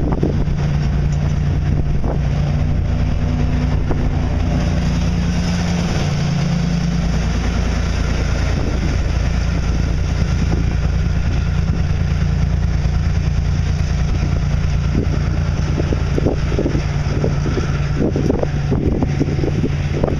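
EMD SW1500 switcher locomotive's 12-cylinder 645 diesel engine running steadily as it rolls past with a train of loaded ballast hoppers, over the rumble of steel wheels on rail. A few knocks come near the end.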